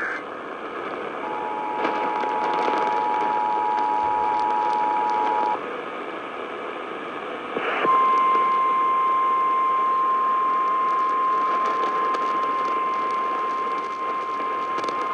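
Broadcast Emergency Alert System attention signal, a steady two-tone alert tone held for about four seconds over radio hiss, announcing an emergency alert. After a short gap, a louder single steady tone, the NOAA Weather Radio warning alarm tone, comes in and holds.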